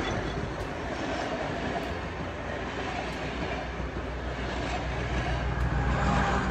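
Passenger train coaches rolling past close by, a steady rumble and clatter of wheels on the rails that grows louder near the end.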